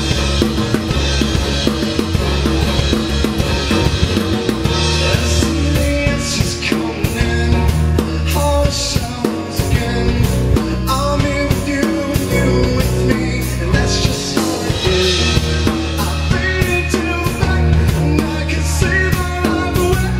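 Live band playing a rock song on acoustic guitars and electric bass, with a steady drum beat.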